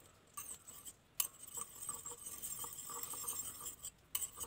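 Metal spoon stirring beetroot juice and egg in a glass bowl, clinking and scraping against the glass: a few sharp clinks, then a stretch of steady scraping in the middle.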